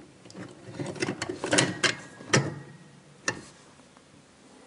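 Light metallic clicks and ticks as the small toothed locknut on the dishwasher's electrical cable connector is turned off by hand, the cable and its connector rattling against the bracket. The clicks come irregularly for about three seconds, then die away.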